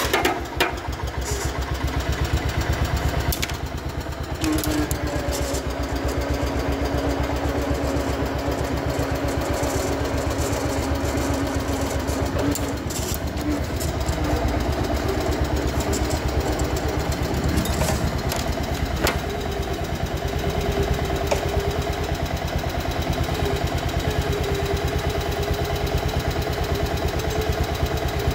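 1971 John Deere 140 H3 garden tractor's single-cylinder engine running steadily just after starting, its firing pulses even throughout. A faint whine rides over it and steps up in pitch about two-thirds of the way through.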